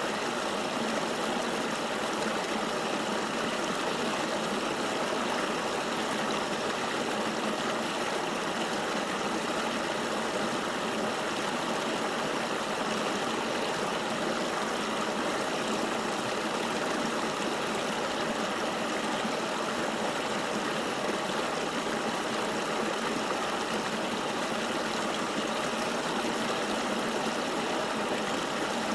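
Flowing river water: a steady, even rush with little deep rumble.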